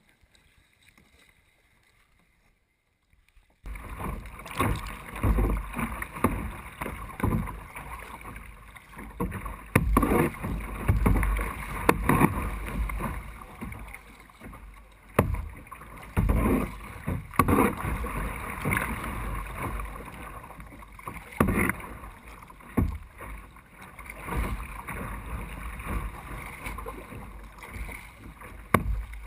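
Near silence for the first few seconds, then choppy water splashing and sloshing against a plastic sit-on-top kayak moving through small breaking waves, in uneven surges, with wind rumbling on the microphone.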